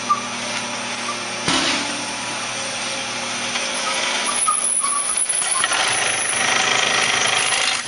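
Industrial bag-closing sewing machine running: a DS-9C sewing head on a CP-4900 fold-over end feed for polywoven bags, a steady mechanical whirr. There is one sharp knock about a second and a half in, and the noise grows busier, with a high thin whine, from about four seconds in.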